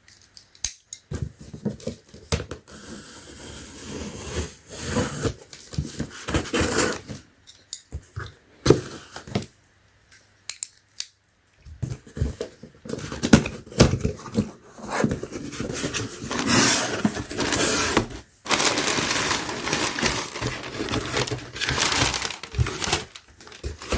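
Packaging being torn open and handled: tearing, crinkling and rustling of the wrapping in irregular bursts, with a quieter pause about halfway through and busier rustling near the end.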